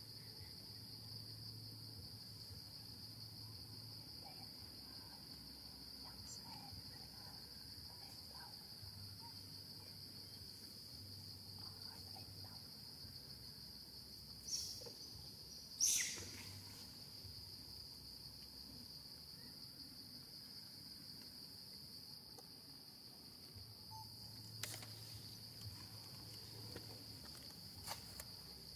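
Steady high-pitched insect trill, like crickets, running throughout. Two sharp clicks come about a second apart near the middle, the second one the loudest sound, with a few fainter clicks later on.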